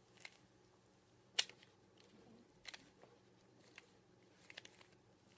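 Rubik's cube faces being turned through an edge-swapping algorithm: scattered light plastic clicks, the sharpest about a second and a half in.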